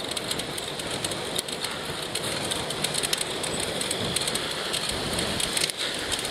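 Steady rushing noise of a moving bicycle ride, with wind and rubbing on a body-worn earpiece microphone, flecked with scattered small crackles.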